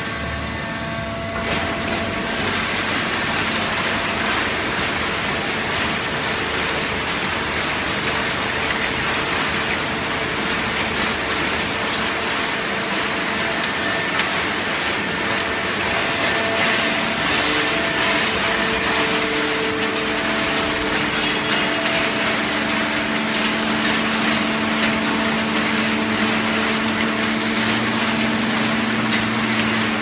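Fully automatic horizontal cardboard baling press running: a steady, loud mechanical din with a hum from its hydraulic power unit, the hum growing stronger about two-thirds of the way through.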